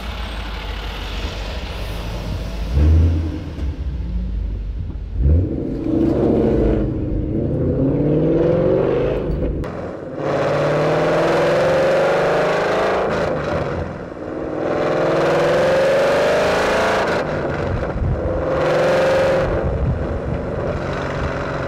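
2012 Ford Mustang GT's 5.0 Coyote V8 with a manual gearbox, breathing through Borla long-tube headers, off-road X-pipe, ATAK axle-back and resonator delete. It runs low and rumbling for the first few seconds, then accelerates in several runs that rise in pitch, with brief dips between them.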